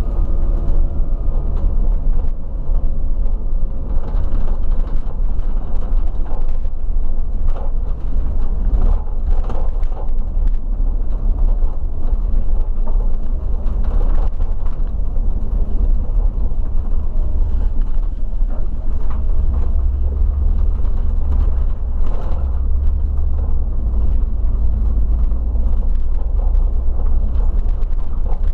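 Bus in motion, heard from the driver's seat: a steady low engine and road rumble, with frequent small rattles and clicks from the vehicle.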